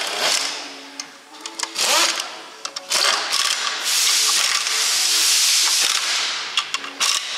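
Pneumatic ratchet running in several bursts, the longest about three seconds, with a fast rattle and hissing exhaust air as it spins bolts down through an extension bar on the cylinder head of a Scania V8 diesel engine under assembly.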